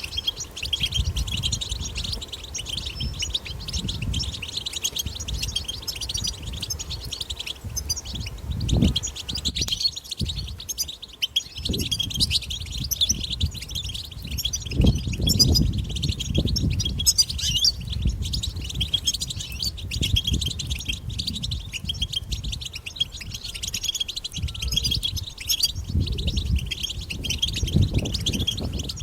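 European goldfinch chattering and twittering: a dense, unbroken stream of fast, high chirps and trills, with low rumbles coming and going underneath.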